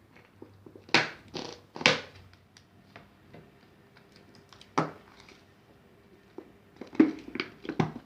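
Small objects being handled on a table: a few sharp clacks and knocks, the loudest about a second in, just before two seconds, near five seconds and at seven seconds, with small ticks and rustles between.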